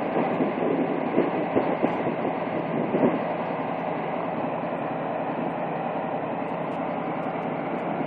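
Steady engine running of a ZIL-131 fire ladder truck standing in place with its ladder raised.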